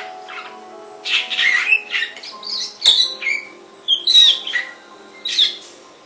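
Caged songbird singing in four short bursts of varied, sliding whistled and squawky notes, with a sharp click a little before the second burst. Quiet music with steady held tones plays underneath.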